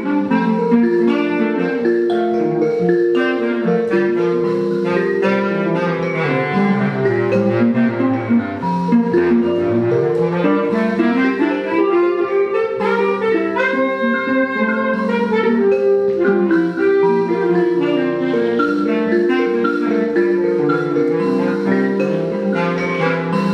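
Live instrumental trio of mbira, guitar and bass clarinet: quick repeating plucked mbira notes interlock with the guitar under held bass clarinet lines. About halfway through, one line slides slowly down in pitch and then back up.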